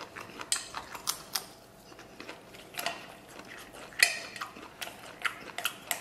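Chopsticks clicking and scraping against a stainless steel bowl while scooping rice, a run of sharp clinks with the loudest about four seconds in, along with chewing.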